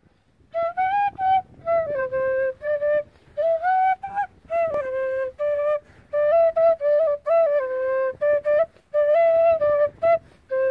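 Quena, an Andean end-blown flute, playing a traditional melody solo in short phrases with brief breaths between them, ending on a long held note.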